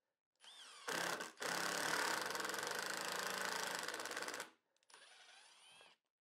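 Cordless Milwaukee impact driver driving a pocket hole screw into oak: the motor whines as it spins up, then hammers rapidly for about three seconds as the screw bottoms out and spins in the stripped hole. The driver then runs again with a softer whine as it backs the screw out.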